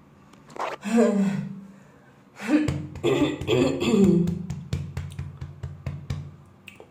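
A girl coughing: one voiced cough about half a second in, then a fit of quick, rapid coughs starting a little past two seconds that trails off into weaker hacks.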